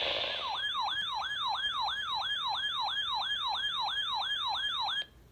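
Siren-style alert alarm from a NOAA weather radio receiver, a yelping tone that sweeps up and down about three times a second and cuts off suddenly near the end. It signals an incoming warning alert, here a severe thunderstorm warning.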